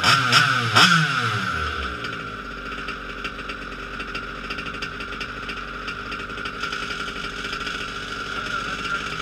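Modified 29cc two-stroke petrol engine of a Losi 5ive-T RC truck on its first run, blipped sharply twice in the first second, then settling into a steady idle.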